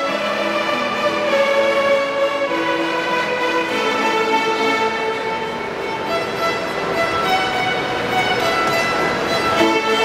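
A large ensemble of children playing violins together, a melody of held, bowed notes moving from pitch to pitch without a break.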